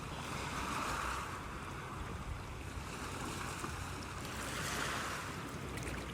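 Wind blowing in gusts, a steady rushing noise that swells twice, about a second in and again near the end.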